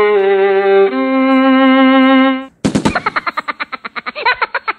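Comic sound-effect music: a held, buzzy note that changes pitch about a second in and cuts off after about two and a half seconds, then a sharp hit followed by a fast stuttering run of short pitched pulses that slows toward the end.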